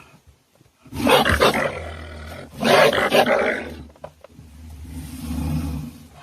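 Two loud animal roars of about a second each, the second starting about two and a half seconds in, followed by a quieter, low rumbling growl.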